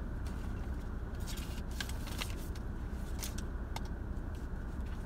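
Paper rustling and light crisp clicks as cards, envelopes and sticker packs are handled, over a steady low rumble.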